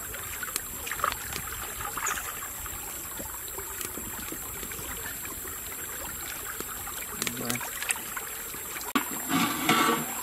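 Wood fire crackling with small scattered pops over the steady rush of a running stream, with a few louder rustling knocks near the end.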